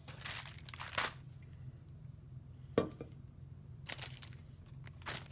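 Rustling and crinkling of handled material in about five short bursts, over a steady low hum.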